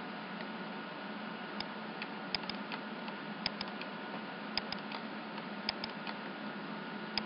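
Computer mouse clicking, mostly in quick press-and-release pairs, about six times, over a steady hiss and low hum from the recording.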